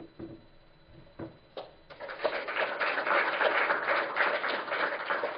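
Audience applause: a few scattered claps, then many hands clapping together from about two seconds in.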